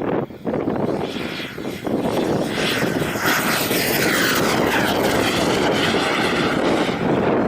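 Gusting wind buffets the microphone, then the high whine of a JetsMunt VT80 turbojet on an RC model jet comes in about two seconds in, its sound sweeping in pitch as the jet passes.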